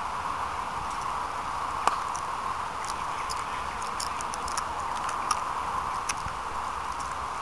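A single sharp knock of a cricket ball about two seconds in, over a steady hiss and faint scattered high ticks.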